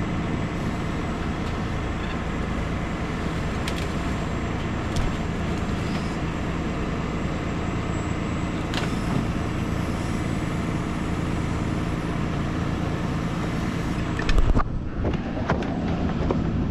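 An engine running steadily at an even pitch, with one sudden thump about fourteen and a half seconds in.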